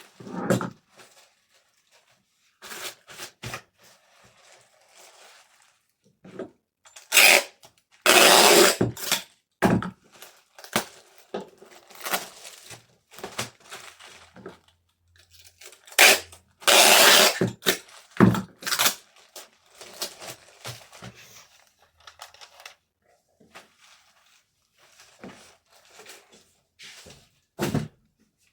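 Packaging being handled while an order is packed: irregular rustling and tearing sounds with light knocks, the loudest a burst about seven seconds in and two longer ones of about a second each, around eight and seventeen seconds in.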